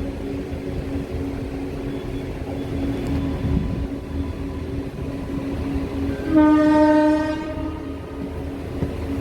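WAP7 electric locomotive's horn giving one blast of a little over a second, about six seconds in, over the steady running noise of the moving passenger train.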